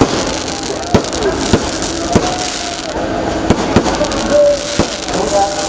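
Fireworks going off: a steady hiss and crackle of burning sparks, with sharp bangs of bursting shells about once a second.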